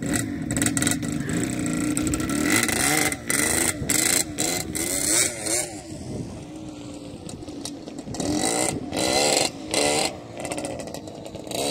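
Quad bike engine running, its revs wavering up and down, with the sound cutting out briefly several times.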